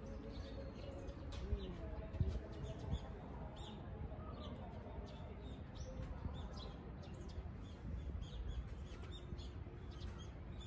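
Small birds chirping in short, scattered notes over a steady low background rumble, with a few dull bumps about two seconds in.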